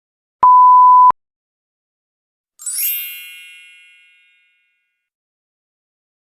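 A single steady censor-style bleep tone lasting under a second. About two and a half seconds in comes a bright 'fairy dust' sparkle of many high chiming tones, which fades away over about a second and a half.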